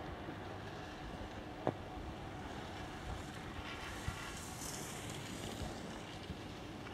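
Steady wind noise on the microphone, with one sharp click nearly two seconds in.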